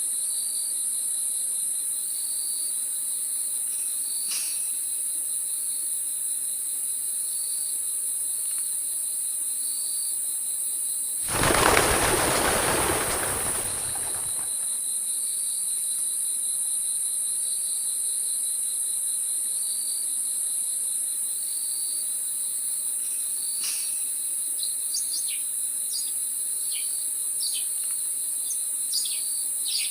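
Night insect chorus: a steady high-pitched drone with a cricket chirping at an even pace, about once a second. A loud rushing noise lasts about three seconds a little before halfway, and a bird gives short chirps near the end.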